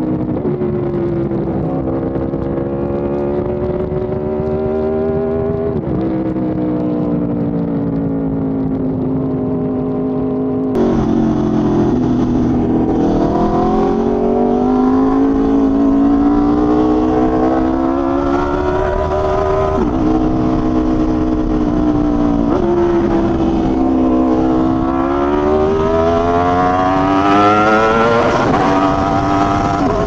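Aprilia RSV4 1100 Factory's V4 engine through an SC Project exhaust, ridden hard: the engine note climbs under acceleration and drops at each gear change, several times over. About eleven seconds in the sound cuts abruptly to a louder, brighter recording of the same engine.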